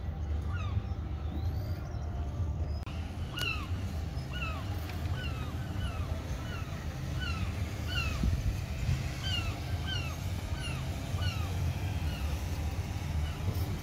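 Gulls calling over and over, short downward-slurred cries coming several a second from about three seconds in, over a steady low rumble.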